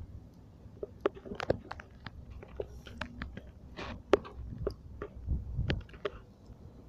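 Irregular crunching and sharp clicks of feet scuffing over rough, algae-covered shore rock, a dozen or so, the loudest just after four seconds, with a low rumble a little after five seconds.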